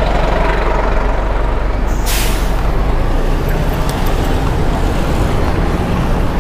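Heavy road vehicle rumbling close by in traffic, with a short hiss about two seconds in.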